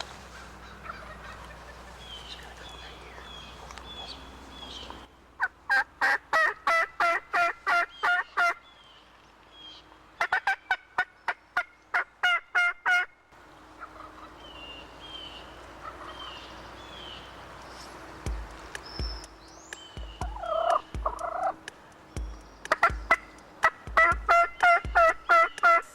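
Turkey yelping: three runs of rapid, evenly spaced yelps, about four a second, with short faint chirps between the runs. A few low thumps come in the last third.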